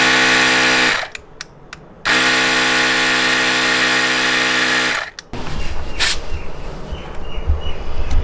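ResQTech portable tyre inflator's electric compressor motor running with a steady hum, now working after a loose connection was fixed. It stops about a second in, starts again a second later, runs about three seconds and stops. After that come rough handling noise and low knocks.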